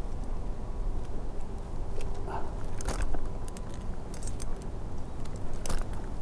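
A few short metallic clicks and crackles, as from carabiners and climbing hardware knocking together and the rope shifting, over a steady low rumble.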